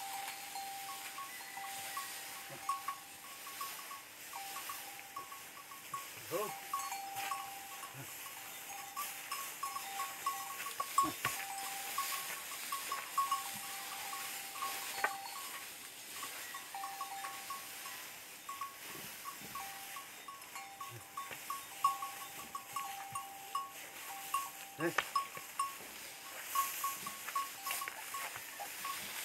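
Bells on threshing bullocks tinkling steadily as the animals walk round over the harvested crop, trampling out the grain, with a few brief knocks.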